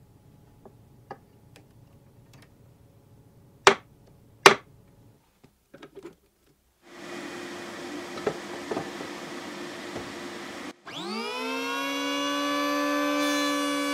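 Small clicks and two sharp knocks as wooden jig parts are fitted, then a dust-extraction vacuum running with a steady rush. Near the end an electric hand planer's motor starts, its whine rising and settling into a steady high pitch as the cutter head comes up to speed.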